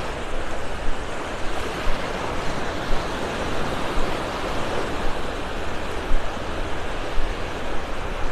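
Small Gulf of Mexico waves breaking and washing up the sand: a steady rush of surf, with wind rumbling on the microphone.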